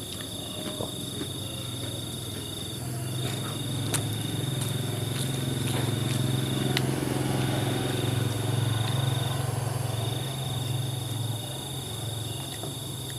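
A motor vehicle's engine, most likely a motorbike, passes by: a low hum that swells over several seconds and then fades. Behind it a cricket trills steadily on one high note, breaking off briefly a few times, with a few small clicks.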